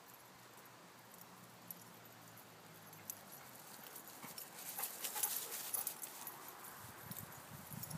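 Weimaraners galloping through long grass close by: a quick patter of paw thuds and grass swishing that builds about halfway through and is loudest a second later, then eases off.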